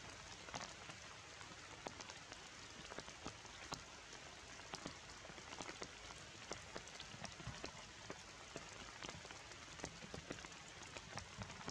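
Steady rain falling on forest leaves, an even hiss with many separate drops hitting close by.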